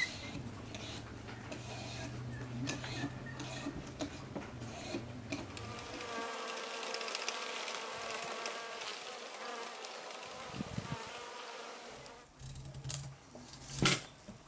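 A hand peeler scraping the skin off a large yellow zucchini, then a bee buzzing over flowers from about six to twelve seconds in. A sharp click near the end as a knife cuts into the peeled zucchini.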